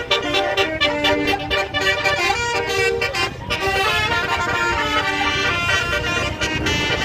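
Melodic basuri-style vehicle horn playing a tune in a string of changing notes, over the low rumble of a running engine.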